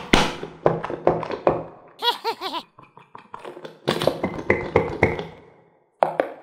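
Rapid taps and thunks from hands squeezing and handling a plastic toy pumpkin and its stretchy filling. About two seconds in there is a short, wobbling springy squeak, then a second cluster of taps and a single click near the end.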